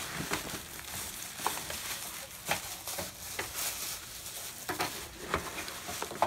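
Rustling and crinkling of plastic and paper wrapping, with irregular clicks and knocks of hard plastic toy parts being pulled from a cardboard box; a sharp knock near the end.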